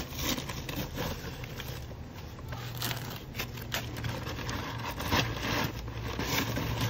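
Small hand trowel scraping and packing gritty quick-setting concrete mix around the base of a steel fence post: a run of short, irregular scrapes, under a steady low hum.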